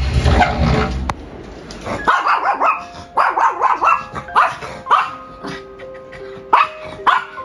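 A dog barking in quick runs of short, sharp barks over background music with held notes, after a low rumble in the first second.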